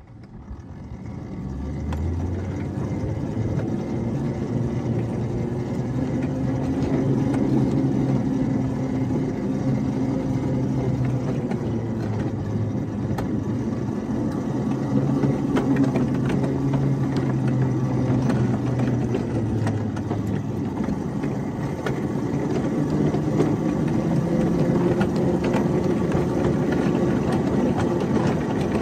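A 7½-inch-gauge ride-on locomotive's engine running as the train pulls away and rolls along the track. It grows louder over the first two seconds, then its pitch rises and falls a little, with light clicks throughout.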